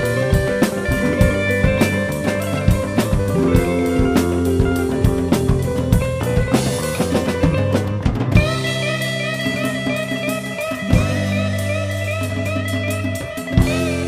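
Rock band music: electric guitar over a busy drum kit, then about eight seconds in the drumming thins out to held guitar chords with a wavering high line on top.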